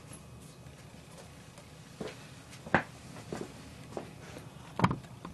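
Quiet room with a few light knocks and clicks, about five spread over the last three seconds, the loudest near the end.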